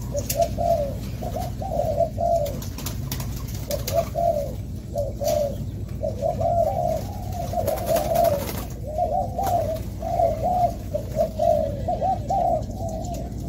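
Several spotted doves cooing, their repeated coos overlapping almost without a break, with scattered light clicks among them.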